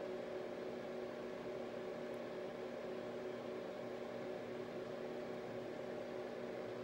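Steady machine hum with several unchanging low tones over a faint hiss.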